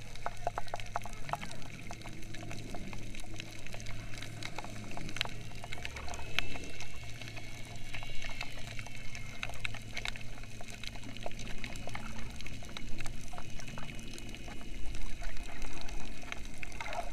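Underwater ambience heard through a submerged action camera's housing: muffled water movement with a steady low hum and many scattered small clicks and crackles.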